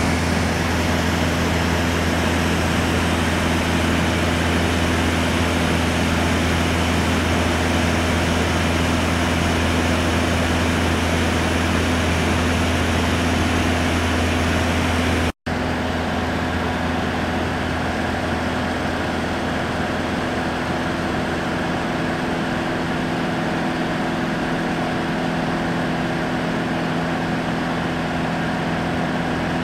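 Steady drone of a light touring aircraft's engine and propeller in flight, heard inside the cabin: a loud, even hum made of several steady low tones. It drops out for an instant about fifteen seconds in and comes back slightly duller.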